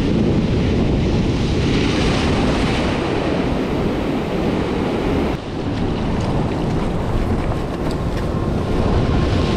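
Rough sea surf breaking and washing over rocks, with wind buffeting the microphone.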